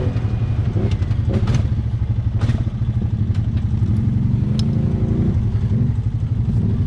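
ATV engine running steadily, its revs briefly rising and falling about four to five seconds in, with a few sharp clanks from the machine.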